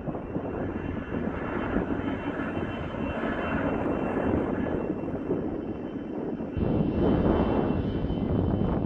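Jet engines of an Airbus A300-600ST Beluga running, a steady rushing noise with a faint high whine. About six and a half seconds in, the sound jumps abruptly louder and deeper.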